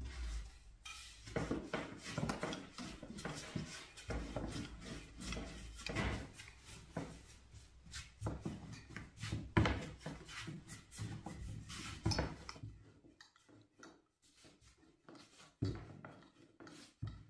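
Hand food preparation: rubbing and handling with many light knocks and taps, which thin out about two-thirds of the way through to a few scattered clicks.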